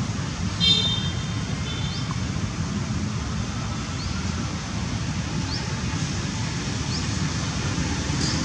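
Outdoor ambience: a steady low rumble of distant road traffic, with short high chirps every second or two. A brief, louder high call comes about a second in.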